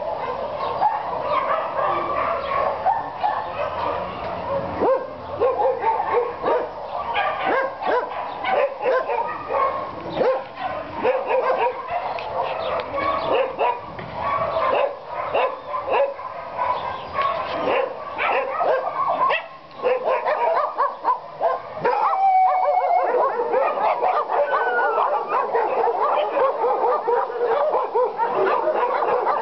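Many kennelled dogs barking and yelping together, a dense, unbroken din of overlapping barks, with a few drawn-out calls that slide in pitch about three-quarters of the way through.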